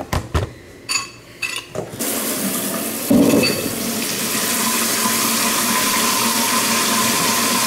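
A few knocks and clicks, then about two seconds in a kitchen tap is turned on and runs steadily into the sink. The water is briefly louder about three seconds in.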